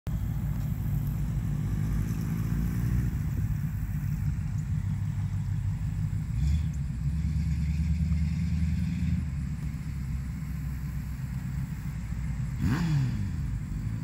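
Low, steady diesel engine rumble of the freight train's approaching locomotives. Near the end a close pass with a quick falling pitch cuts through.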